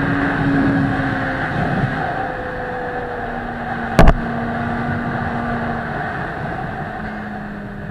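Suzuki GSX-R 600 inline-four engine running at a steady cruise with wind rushing over the microphone, its note easing slowly lower. A single sharp knock about four seconds in.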